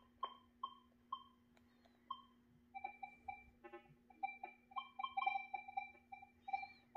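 Minelab Equinox 800 metal detector giving a string of short electronic beeps as its keypad is pressed to step through settings. A few higher beeps come first, then from about three seconds in a run of many quick, lower beeps. A faint steady hum lies under them.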